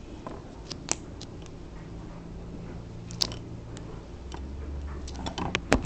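Scattered clicks, taps and crunchy rustling as a ceiling fan's mount is handled and fitted back on, with a faint low hum through the middle and one sharp, louder click just before the end.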